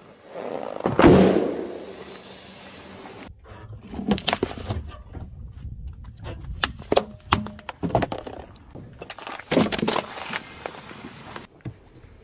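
Car tyre rolling over and crushing objects, among them a volleyball and a hollow plastic duck decoy: a loud impact about a second in, then a string of separate cracks, crunches and thunks.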